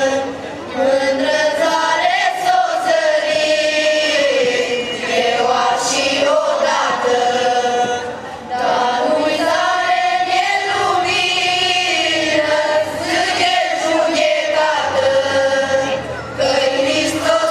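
Mixed folk choir of women and men singing a Romanian colindă (Christmas carol) in long sustained phrases, with two short breaks for breath between lines.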